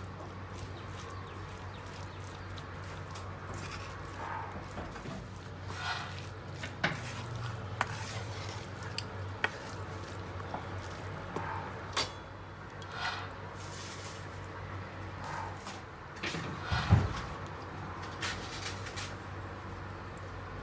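Kitchen food-preparation sounds: scattered clicks, taps and scrapes of utensils against dishes, with one louder knock near the end, over a steady low hum.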